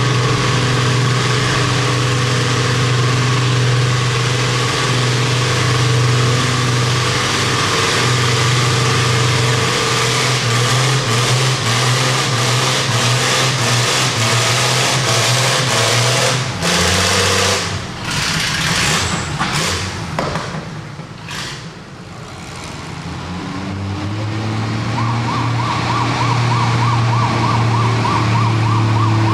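Pulling tractor engine running hard under load as it drags a weight-transfer sled, a steady drone for about the first sixteen seconds, then falling away around seventeen seconds in. From about twenty-three seconds in, another tractor engine (an Oliver) runs steadily, and a rapid pulsing tone sounds over it near the end.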